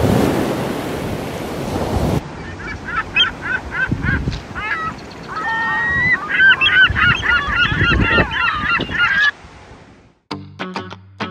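Surf and wind noise for about two seconds, then birds honking: many short, overlapping calls for about seven seconds. The calls stop and music with plucked notes begins near the end.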